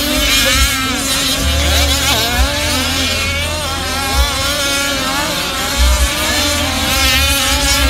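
Several 1/5-scale four-wheel-drive Pro4 RC racing trucks' small engines revving up and down as they race, their pitches rising, falling and overlapping.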